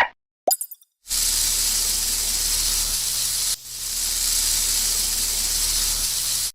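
A snake hissing: two long, steady hisses, the first about two and a half seconds, the second about three seconds, with a brief break between them. A short tone sounds just before the hissing.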